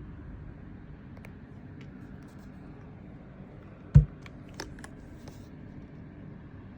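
Handling noises: one sharp thump about four seconds in, followed by a few light clicks and taps, over a steady low hum.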